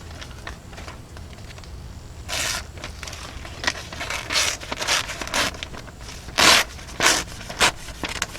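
A knife blade slicing through a sheet of paper in a run of short, scratchy cuts, testing how sharp the edge is. The cuts start about two seconds in, and the loudest comes near the middle.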